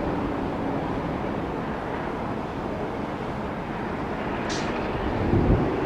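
Steady rumble of jet aircraft noise across the airport, with a faint steady hum, a short hiss about four and a half seconds in and a louder swell near the end.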